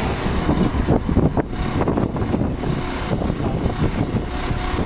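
Road and engine noise of a moving vehicle heard at its open side window, with wind buffeting the microphone.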